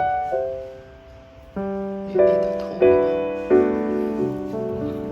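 Background piano music: gentle single notes and chords, each struck and left to fade.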